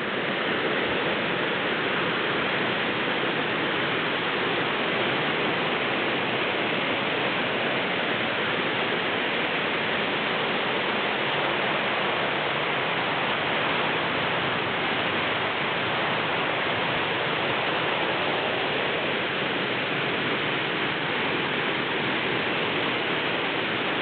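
Waterfall and river water rushing steadily, an even noise without a break.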